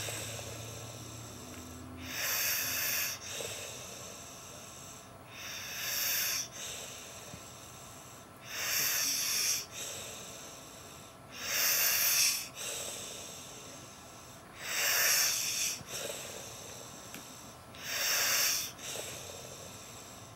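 A man snoring in deep sleep: six slow, hissy breaths, each about a second long and roughly three seconds apart.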